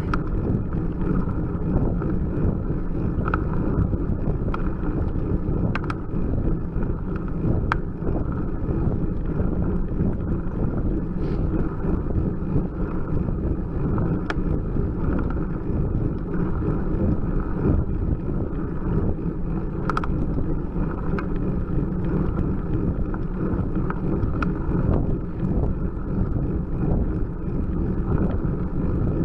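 Steady low wind and road rumble on the microphone of a camera mounted on a road bike climbing at about 10 mph, with a few faint clicks scattered through.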